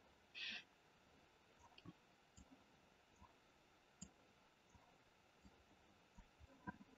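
Near silence with a few faint, scattered computer mouse clicks, and a brief soft hiss about half a second in.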